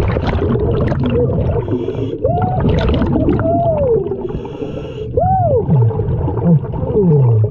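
Underwater sound around a scuba diver: a steady rumble of exhaled bubbles, with short hisses of breaths drawn through the regulator about 2 and 4 seconds in. Several muffled hooting tones rise and fall in pitch, two of them sliding steeply down near the end.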